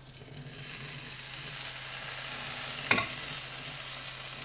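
Lentil-cornmeal batter sizzling as spoonfuls are dropped into hot olive oil in a nonstick frying pan; the sizzle swells over the first second and then holds steady. There is a single sharp clack about three seconds in.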